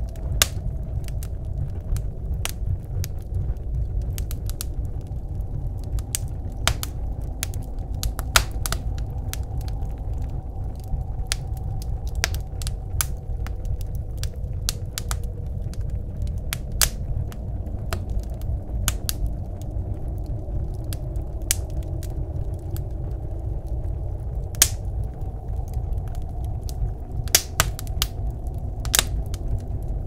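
Wood fire crackling in a wood stove, with irregular sharp pops and snaps, over a steady low rumble of blizzard wind.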